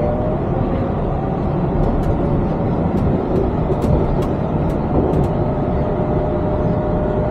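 Yurikamome driverless train heard from inside the cabin: a steady running rumble, with a motor whine that rises slightly in pitch over the first second and then holds level as the train gathers speed.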